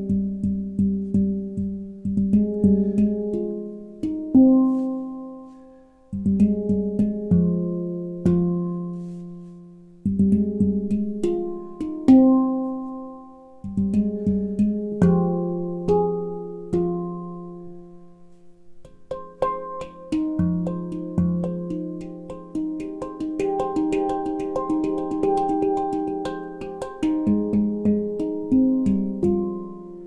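McCarthy nitrided-steel handpan tuned to F low Pygmy with nine notes, played with the hands: rhythmic phrases of struck notes that ring and fade, with quick soft taps between them. In the first half several notes are left to ring out; in the second half the playing turns denser and faster.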